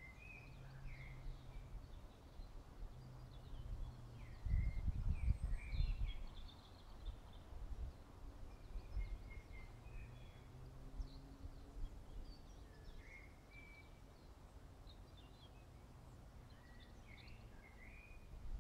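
Songbirds singing, with short chirps and trills scattered throughout, over a low rumble that swells to its loudest about four to six seconds in.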